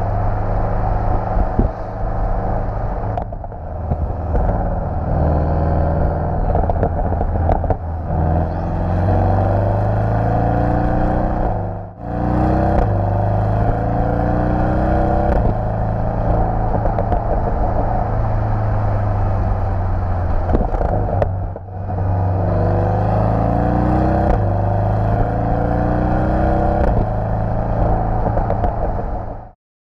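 Porsche 718 Boxster GTS's turbocharged flat-four engine pulling hard through the gears, its pitch climbing and then dropping at each upshift over and over. It dips away briefly twice and cuts off suddenly near the end.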